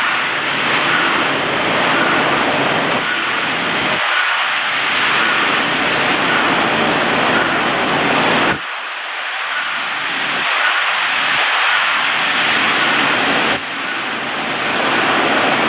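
Steady machinery noise from an automatic wire-mesh welding line: a loud, even hiss that changes abruptly twice.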